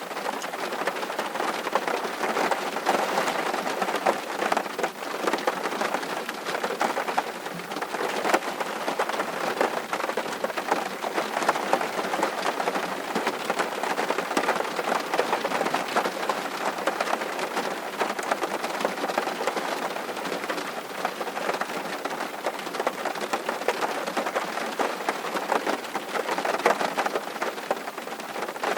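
Steady rain, a dense patter of drops falling on a surface, unchanging throughout.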